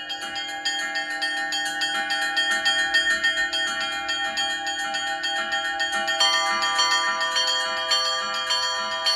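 Orthodox church bells rung in a peal, the small bells struck rapidly, several strikes a second, over the steady ringing of lower bells. Another bell joins about six seconds in, adding new tones.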